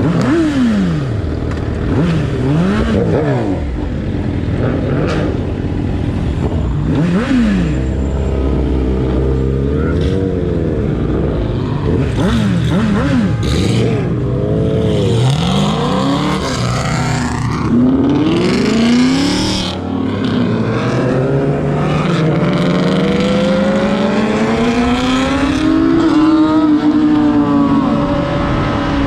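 High-performance vehicle engines revving hard, their pitch shooting up and dropping back again and again with several engines overlapping; in the later part one engine's pitch climbs slowly and steadily as it accelerates.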